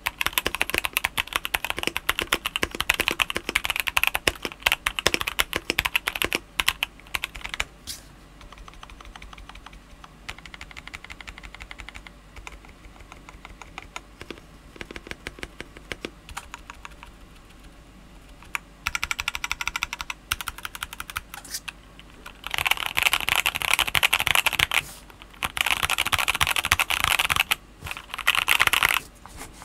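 Typing on a Sikakeyb SK1 Castle 60% mechanical keyboard with a CNC aluminium case, FR4 plate, NovelKeys Box Cream linear switches and PBT keycaps. Fast, dense keystrokes give way after about eight seconds to slower, quieter single key presses. Fast typing returns for the last several seconds.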